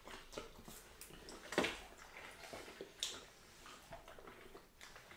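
Quiet wet eating sounds of fufu and okra soup being eaten by hand: scattered small squelches, smacks and clicks, the loudest about one and a half seconds in and another at about three seconds.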